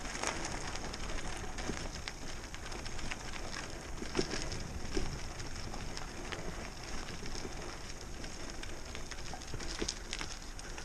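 Bicycle rolling over rough, gravelly pavement: a steady crunch of tyre and road noise with scattered clicks and rattles.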